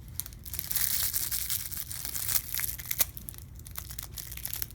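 Crinkle ball crackling and rustling as a cat bats and grabs at it, a dense run of crinkles that starts about half a second in and thins out after about three seconds.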